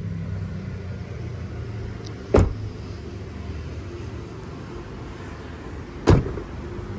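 Two short, solid thumps of the Toyota Land Cruiser's doors being shut, one about two seconds in and one near the end, over a steady low hum.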